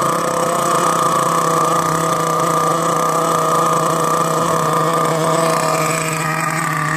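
HPI Savage nitro RC monster truck's two-stroke glow engine running steadily just after being pull-started, left to run so it warms up and doesn't stall.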